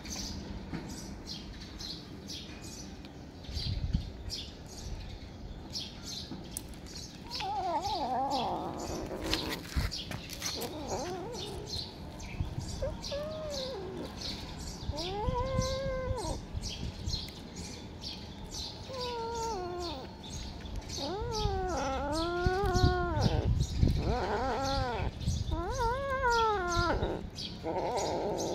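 A kitten giving a string of drawn-out, rise-and-fall yowls, sparse at first and coming close together and louder in the last third.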